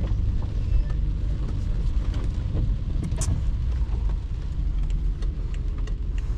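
Steady low rumble of a BMW 5 Series sedan heard from inside its cabin, with a few faint ticks.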